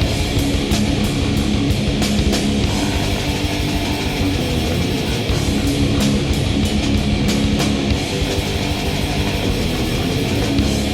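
Black metal recording: heavily distorted electric guitar with drums and cymbal hits, dense and loud throughout.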